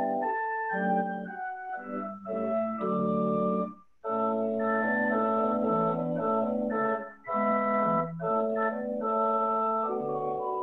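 Organ music: held chords played on an organ, changing every second or so, with a short break about four seconds in before the playing resumes.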